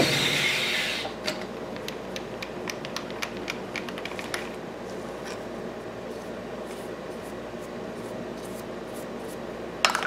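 Milling machine end mill cutting into a metal mold blank; the cutting noise stops about a second in. The machine keeps running with a steady hum while chips are brushed off the work by hand, making scattered scratchy ticks, with one sharp click near the end.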